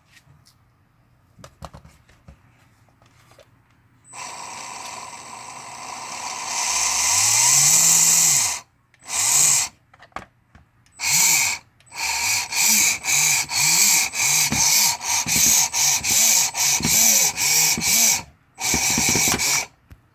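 Modified 35-turn brushed RC car motor spinning up to a high-pitched whine, holding it for a couple of seconds and cutting off. It is then revved in a quick series of short blips, each about half a second, over a dozen times. This is a bench test run of the repaired motor.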